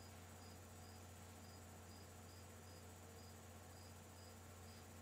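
Near silence: room tone with a steady low hum and a faint, short, high chirp repeating about twice a second, typical of a chirping insect.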